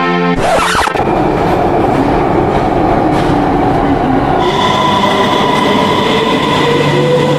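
Passenger train running on the rails: a sudden burst of noise, then a steady rumbling run, with a whine that slowly rises in pitch from about halfway through.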